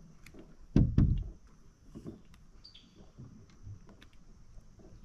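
Knocks and thumps on a bass boat's deck while a freshly caught bass is handled and unhooked, the loudest being two heavy thumps about a second in, with small clicks scattered through. A faint steady high tone runs underneath.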